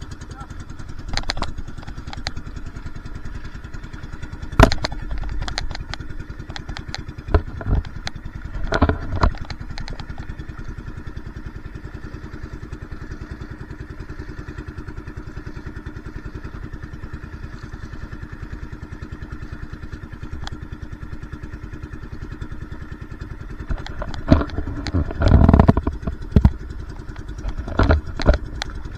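Motorized outrigger boat's engine running steadily under way, with scattered sharp knocks and clatters, bunched in the first third and again near the end.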